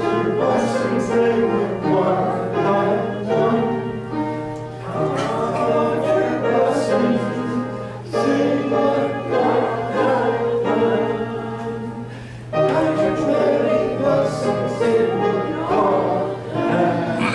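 A choir singing a slow hymn in long phrases, with a steady low hum underneath.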